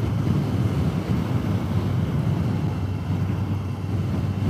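Steady wind rush and a low engine hum from a Honda CBR1100XX Blackbird motorcycle cruising on the open road, as picked up by a helmet-mounted camera.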